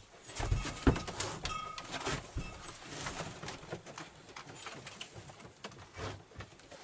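Pigeons in a wooden hide cooing and shifting about on a wooden platform, with scattered knocks and clicks and one loud thump just under a second in.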